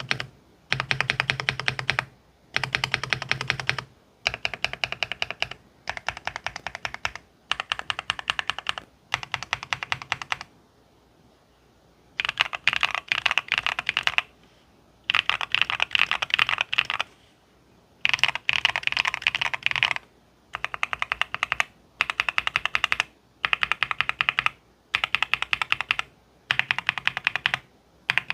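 Fast typing on an M3 Pro prebuilt custom mechanical keyboard fitted with BSUN Green switches, in bursts of rapid key clicks of a second or two each with short breaks between, and one longer pause about ten seconds in.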